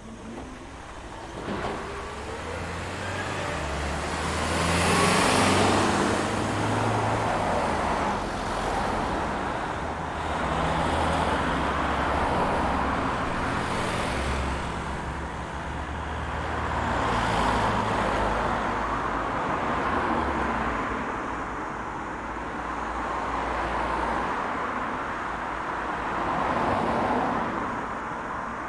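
Road traffic: vehicles passing one after another, each one's tyre hiss and engine rumble swelling and fading away, and the loudest pass comes about five seconds in.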